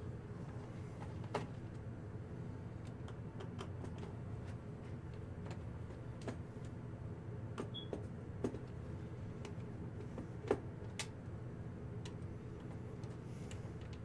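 Scattered light clicks and taps of a small screwdriver and plastic parts as a laptop keyboard is worked loose, over a steady low hum.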